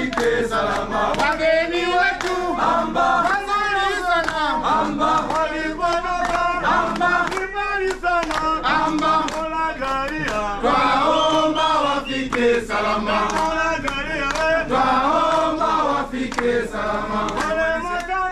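A group of men singing together in chorus, a chant-like song with voices rising and falling.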